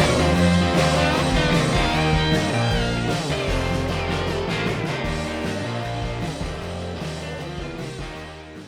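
Background rock music with guitar and a steady beat, fading out gradually toward the end.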